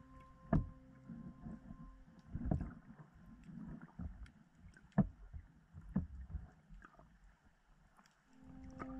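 Underwater sound of rough surf picked up by a submerged action camera: irregular low thumps and surges of moving water, the strongest about half a second in and about five seconds in.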